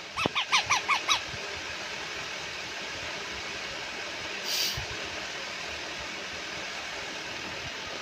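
Parrot chick giving a fast run of about seven short squawks, each dropping in pitch, within the first second, typical begging calls of a chick being hand-fed. About four and a half seconds in, a brief hiss.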